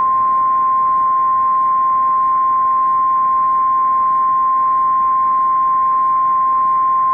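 The National Weather Service's 1050 Hz warning alarm tone: one long, steady, unbroken beep at a constant loud level. It is the attention signal that announces a severe thunderstorm warning, heard through an FM station's live stream.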